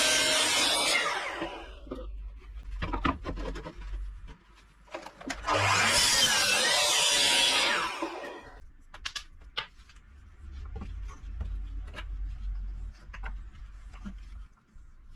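Tool working material with a loud rasping noise in two bursts of two to three seconds, with scattered clicks and knocks between and after.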